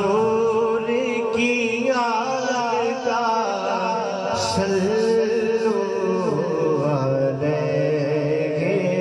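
A man's voice singing a Punjabi naat into a microphone, long held notes with wavering, ornamented pitch and no instruments.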